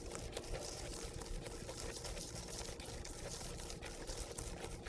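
Wire whisk stirring thick pumpkin cake batter in a mixing bowl, with soft, irregular wet clicks and scrapes against the bowl.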